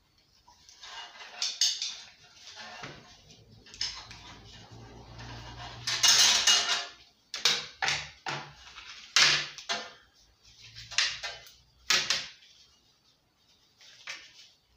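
Clicking and clattering of a lawnmower's plastic recoil-starter pulley and small metal tools and parts handled on a workbench, a string of irregular knocks with a few louder clanks.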